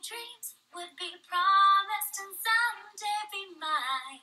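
Singing from a musical's song: a quick, rhythmic vocal line with faint music.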